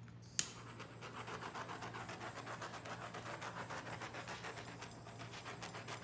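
A handheld torch clicks on and its flame hisses steadily, with a fast flicker, while it is swept over the wet paint.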